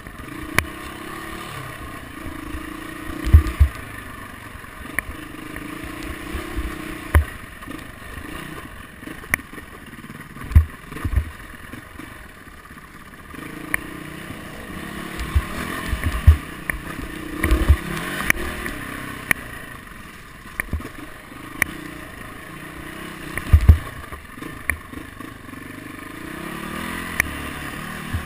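Dirt bike engine running along a rough trail, its pitch rising and falling with the throttle. Repeated sharp knocks and clatter come as the bike hits bumps and roots.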